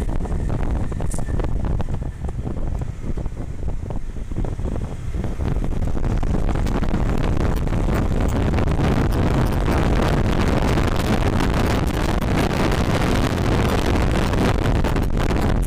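Wind rushing over an action camera's microphone on a moving Honda CBR150R motorcycle, with the bike's single-cylinder engine running underneath. The wind rush grows fuller and stronger about five seconds in.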